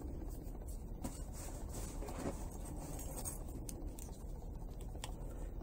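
Faint light clicks and scratches of small plexiglass gearbox pieces being handled and lined up on a workbench, over a steady low hum.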